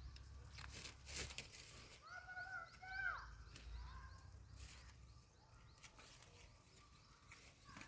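A goat bleats once, about a second long, starting about two seconds in, over faint scattered clicks.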